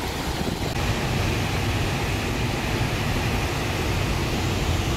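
Floodwater rushing through the open gates of a river weir: a steady, loud rush of turbulent water, the river swollen by flooding.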